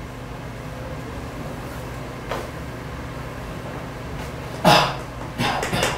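Steady low hum, then near the end a few short strokes of chalk on a chalkboard.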